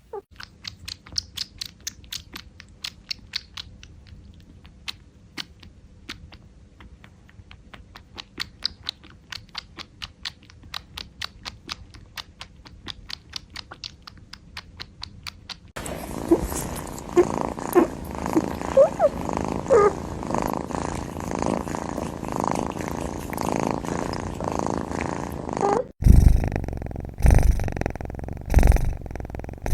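Kitten drinking milk, small wet clicks about twice a second. About halfway through this gives way to a loud, steady purr with a few short squeaks. Near the end, loud low thumps come on top of the purr.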